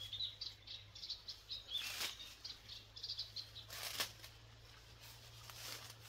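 Small birds chirping and twittering, with two brief sharp rustles about two and four seconds in as stinging nettle stems are cut by hand with a knife.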